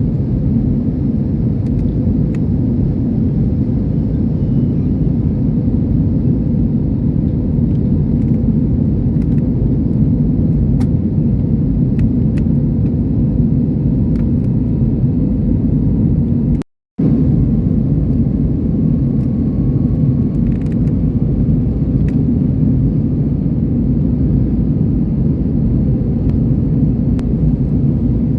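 Steady low roar of an airliner cabin in flight, with the sound cutting out completely for a moment about seventeen seconds in.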